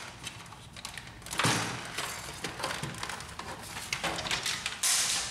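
Plastic upper cover of a Samsung ML-3310 laser printer being unhooked and lifted off the housing: a sudden scrape and clatter of plastic about a second and a half in, light handling noise, then a longer scraping rustle near the end.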